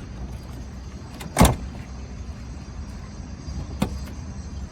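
VW Citi Golf Mk1 door handle and latch being worked as the freshly refitted handle is tested: one loud clunk about a second and a half in and a lighter click near the end, over a steady low rumble.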